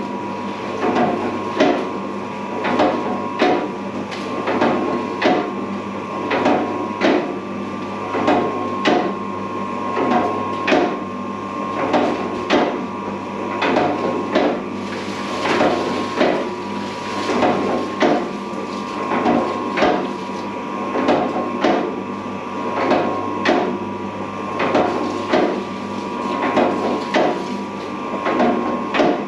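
Commercial dough mixer running with a batch of bread dough, the dough knocking against the bowl about once a second as the hook kneads it, over a steady motor hum.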